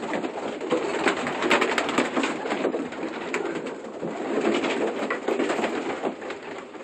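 Racing pigeons cooing, a steady murmur of many birds, with scattered sharp clicks and rustles.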